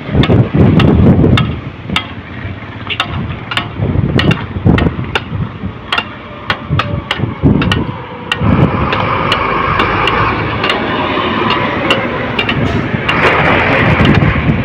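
Repeated sharp knocks at irregular intervals, a few each second, over the low rumble of heavy machinery. About eight seconds in, the machinery settles into a steadier engine hum while the knocks go on.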